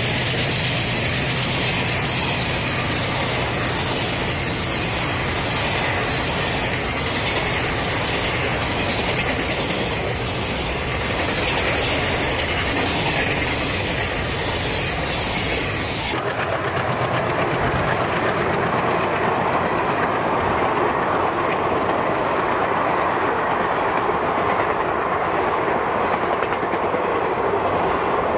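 Passenger coaches of an express train passing close by at speed: a steady rush of steel wheels rolling on the rails. The sound changes abruptly about sixteen seconds in, losing much of its high hiss and becoming duller.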